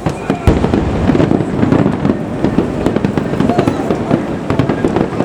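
Aerial fireworks exploding: a deep boom about half a second in, then a steady run of bangs and crackling pops.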